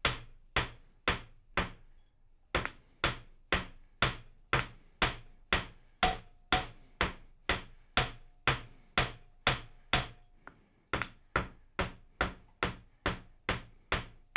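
Flat face of a forging hammer striking a copper bar on a steel anvil, about two blows a second, each with a short bright metallic ring. The blows pause briefly twice. The copper is being forged flat to change its plane.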